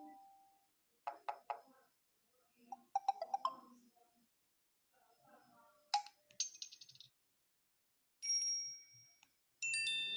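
Samsung Galaxy S3 notification sounds previewed one after another: a string of short electronic chimes and jingles, each lasting a second or less, separated by brief silences.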